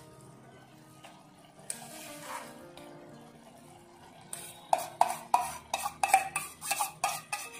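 Metal spoon scraping mashed sprouted moong off a steel bowl, then tapped against the bowl's rim about ten times in quick succession in the second half, each knock ringing sharply, to shake the last of the mash off. Quiet background music underneath.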